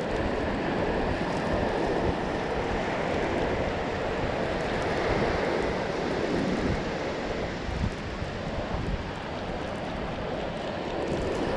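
Wind buffeting the microphone, with surf washing on the beach behind it: a steady rushing noise.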